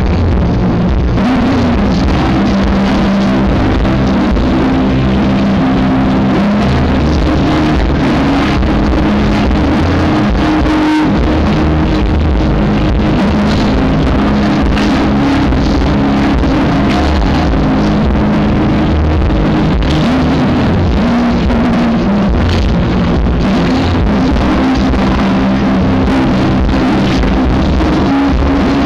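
Live rock band music over a concert PA, recorded through a faulty camera microphone, so it comes through as a heavily distorted, flattened, constantly loud wash.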